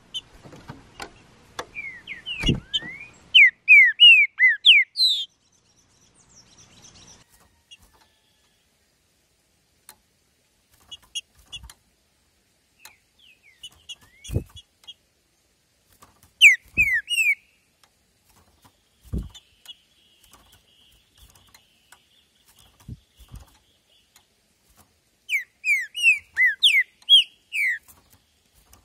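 Green-winged saltator (trinca-ferro) singing: three loud phrases of quick, downward-slurred whistles, near the start, midway and near the end, with soft chips and a few dull knocks in between.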